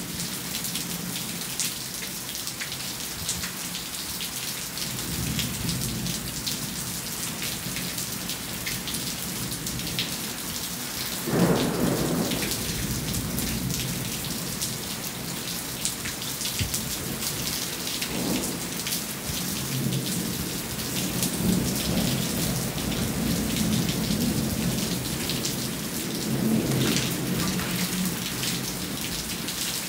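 Steady rain with many close drops spattering. Thunder comes in with a sudden loud clap about eleven seconds in that rolls away, followed by several lower rolling rumbles.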